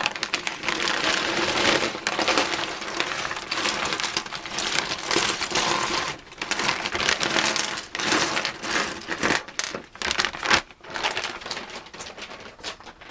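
Plastic wrapping crinkling and rustling while small plastic Lego minifigures and parts click and clatter against each other as they are handled.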